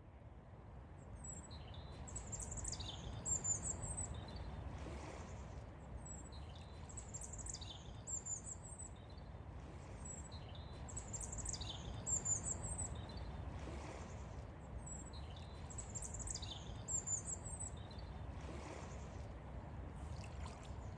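Songbird singing high, quick chirping phrases, the same phrase coming back about every four and a half seconds, over a steady low rumble.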